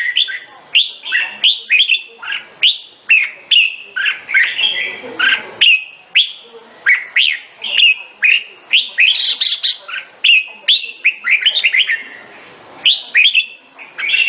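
Red-whiskered bulbul singing: a rapid, continuous run of short rising notes, several a second, with a brief lull near the end.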